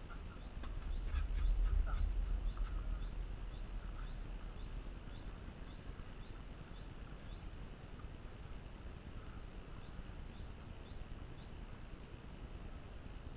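Open-air ambience: a low rumble that swells during the first few seconds and then eases off, under a small bird's short high chirp repeating two or three times a second.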